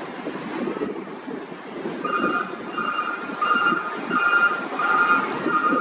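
Electronic beeping that starts about two seconds in and repeats evenly, about one and a half short beeps a second, over wind buffeting the microphone.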